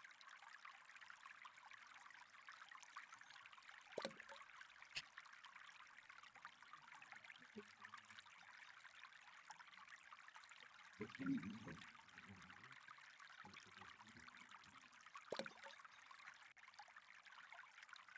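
Faint steady trickle of flowing water, with a few sharp clicks and a short low knock-like rumble about eleven seconds in.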